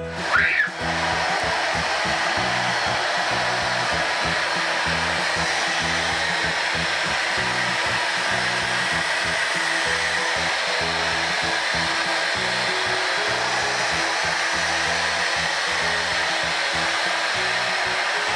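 Vacuum cleaner switched on, its motor whining up in pitch for a moment and then running steadily as it is pushed over carpet. Light background music plays underneath.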